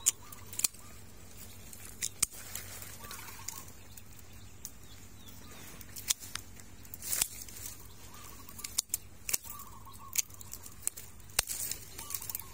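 Irregular sharp clicks and snaps of twigs and leaves being handled and cut as a wild honeybee nest is taken from its branch, over a faint low hum.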